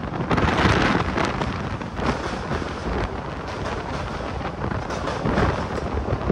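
Wind buffeting the microphone over the running noise of a moving Indian express passenger train, with uneven rattling and clatter throughout.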